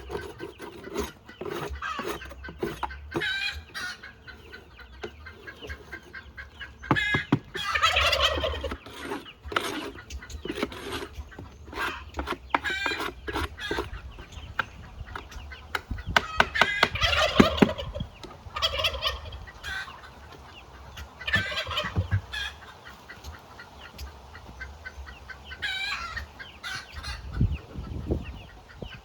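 Domestic turkey gobbling, loudest about 8 and 17 seconds in, with shorter calls from the flock after, over scattered clicks and knocks.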